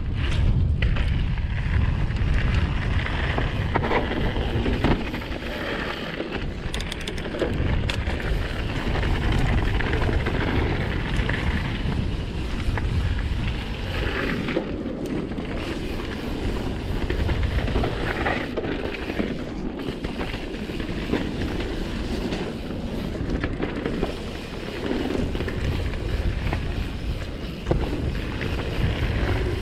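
Mountain bike running fast down a dirt singletrack: wind buffeting the action camera's microphone over a steady rumble of tyres on dirt. Scattered clicks and knocks come from the bike rattling over bumps.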